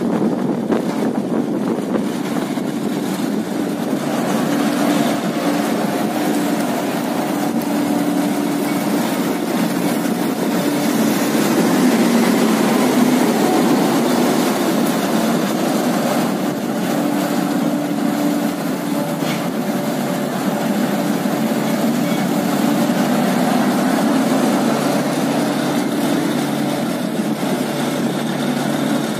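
Electric Haybuster 1130 tub grinder grinding hay while a wheel loader's diesel engine runs nearby, together making a steady, loud mechanical din with a low hum that wavers slightly in pitch.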